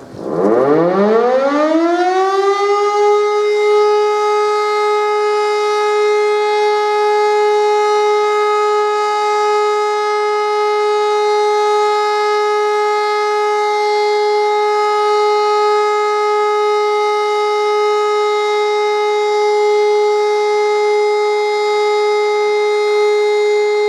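Siemens E57 electric rotor siren spinning up from rest, its pitch rising over about three seconds to a loud, steady held tone. The unbroken steady tone is the all-clear (Entwarnung) signal at the end of the test alarm.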